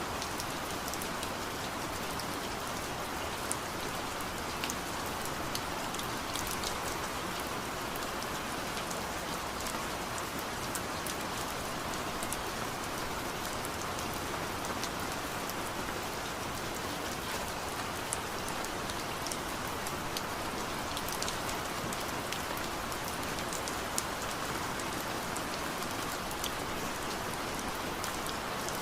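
Steady rain falling, an even hiss with scattered drops ticking sharply on a surface.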